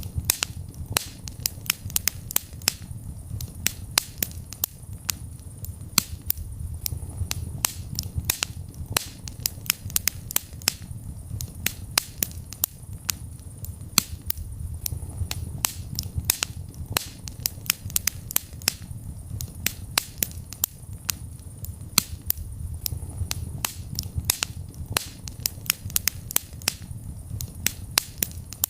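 Wood fire in a fireplace crackling: frequent sharp, irregular pops and snaps over a low, steady rumble of the flames.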